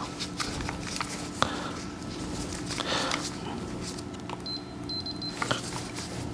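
Scattered light clicks and taps of multimeter test probes and a handheld clamp meter being handled against a fuse. About two-thirds of the way in, the meter gives a brief, choppy high-pitched electronic beep.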